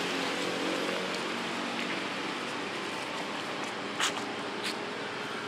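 Steady rushing background noise of an outdoor scene, with two sharp clicks about four seconds in, a little over half a second apart.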